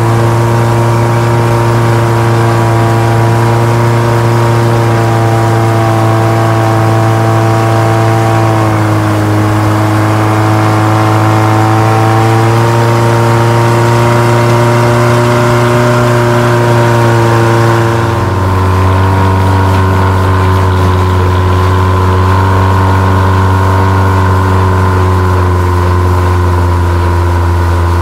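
A river boat's engine running loudly and steadily under way, with water noise; about two-thirds of the way through its note drops lower as the engine slows.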